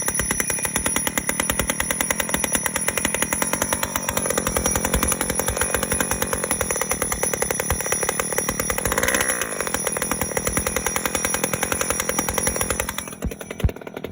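1985 Honda Spree scooter's 49cc two-stroke single-cylinder engine running with a fast, buzzing firing rhythm, now running after being hard to start. The revs swell briefly partway through and the engine settles to a lower, quieter beat near the end.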